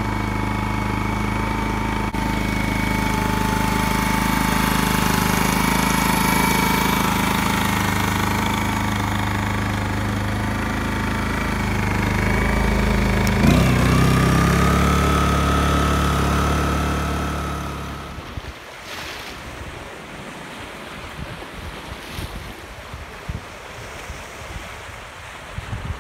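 Powerhouse 2000Wi inverter generator's small overhead-cam engine running steadily and super quiet, now that its camshaft and timing chain are back in place and it has compression again; its speed steps up a little about halfway through. After about 18 seconds it cuts off abruptly, giving way to gusting wind and waves breaking.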